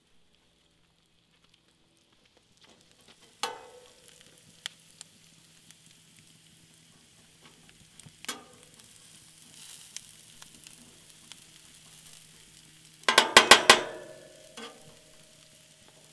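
Diced onions sizzling on a hot flat-top griddle, starting a few seconds in, while a metal spatula scrapes and turns them, with single scraping clanks. Near the end comes a quick run of about five loud, ringing metal clanks as the spatula strikes the griddle.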